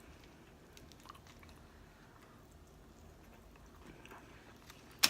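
Faint chewing of food, with one sharp click about five seconds in.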